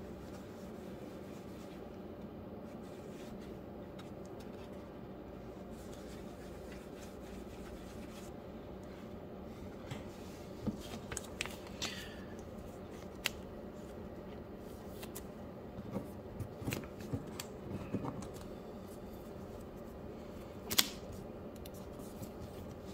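Steady low room hum, with scattered light clicks and rustles of clear plastic card holders being handled from about ten seconds in, and one sharper plastic click near the end.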